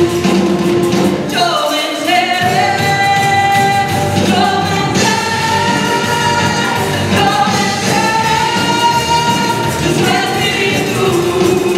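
Live worship music: several singers singing long held notes together over a band.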